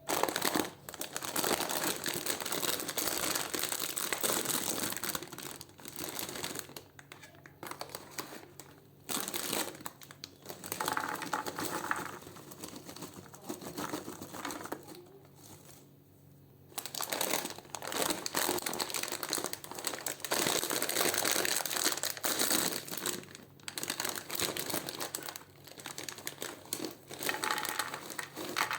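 Plastic snack packets of crisps and candy crinkling as they are handled and unwrapped, in repeated stretches with short pauses and a quieter spell about halfway through.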